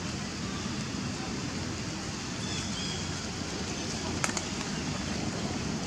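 Steady outdoor background noise, with a single sharp click about four seconds in.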